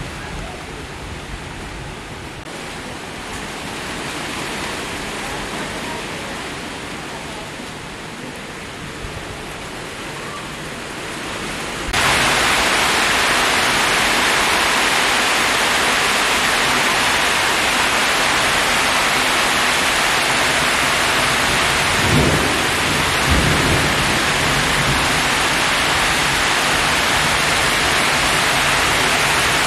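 Heavy monsoon rain pouring onto trees and ground as a steady hiss, which turns abruptly much louder about twelve seconds in. Two short low thumps come close together near the end of the second third.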